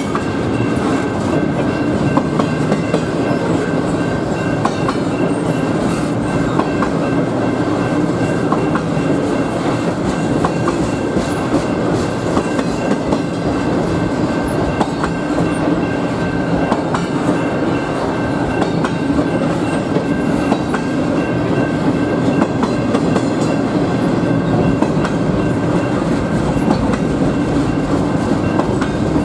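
Double-stack intermodal freight cars rolling steadily past at a grade crossing, a continuous rumble of steel wheels on rail with frequent sharp clicks as the wheels pass over joints, and a thin steady high tone running underneath.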